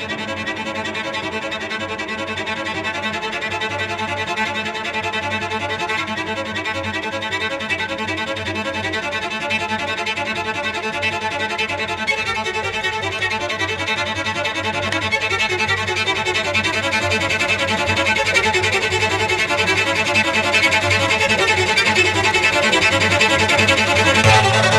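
Background music led by a violin, with dense sustained notes, growing gradually louder.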